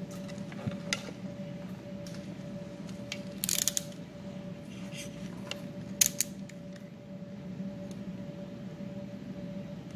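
Wire strippers clicking and snipping on small power wires as insulation is stripped, a handful of sharp snips with the loudest about six seconds in. A steady low hum runs underneath.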